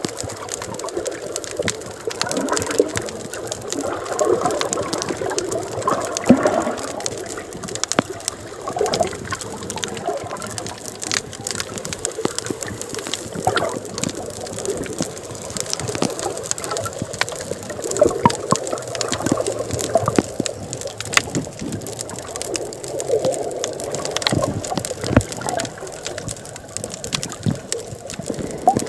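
Sea water heard underwater through the camera: muffled gurgling and sloshing that swells and fades, with scattered sharp clicks throughout.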